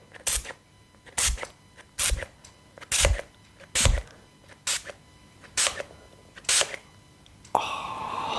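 Hand-pump oil spray bottle spritzing in a series of eight short, sharp sprays, about one a second. A longer, steadier sound starts near the end.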